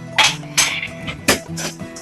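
Background music, with three sharp knocks and clatters of kitchen utensils and cookware during meal preparation.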